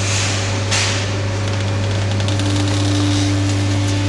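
Fercell vertical cardboard baler's hydraulic pump motor running with a steady hum as the press platen is driven down. A second, higher steady tone joins a little past halfway, and there is a brief hiss about a second in.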